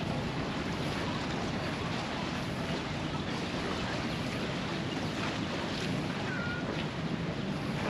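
Steady wind buffeting the microphone, mixed with the wash of the sea against a rocky shore.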